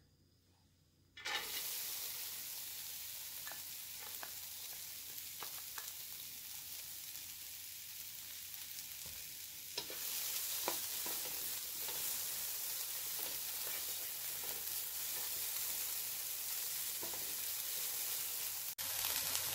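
Chopped onions cooking in a dry non-stick wok over medium heat, before any oil: a steady sizzle with light scrapes and taps from a spatula stirring them. The sizzle starts about a second in and grows a little louder about ten seconds in.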